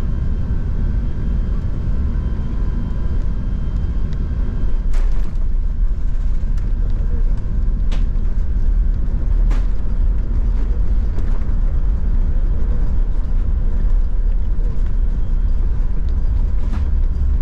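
Steady low rumble heard inside the cabin of an Airbus A380 around landing, with a few faint steady tones over it. A few short sharp knocks or rattles come about five, eight and nine and a half seconds in.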